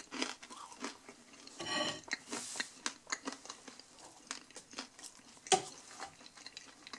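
Close-up chewing and crunching of a crisp pizza crust: a scatter of small crunches. About five and a half seconds in, a single sharper knock as a drink cup is set down on the wooden table.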